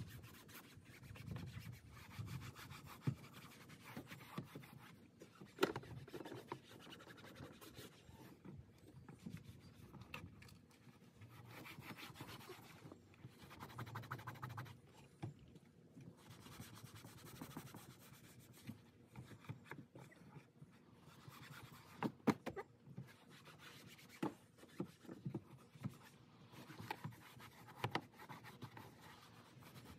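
Faint rubbing of a foam applicator pad being wiped over plastic interior trim, with a few light knocks and clicks.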